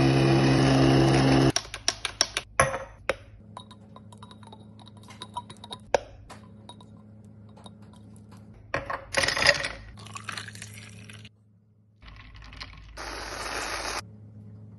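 Coffee machine running as coffee streams into a glass. After it cuts off, small glassy clinks and taps follow, with a short loud hiss around the middle and another steady hiss near the end.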